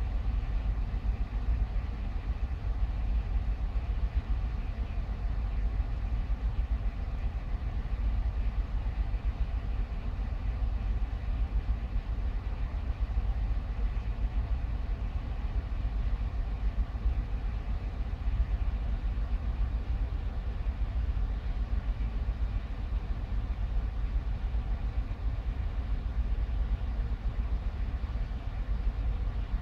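Steady low mechanical rumble with a faint hum, unbroken and even, with no distinct kitten cries standing out.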